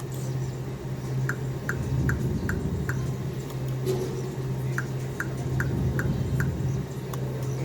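Quick Hit Volcano slot machine's reels stopping one after another, a short tick for each of five reels about 0.4 s apart, in two spins, over a steady low machine hum.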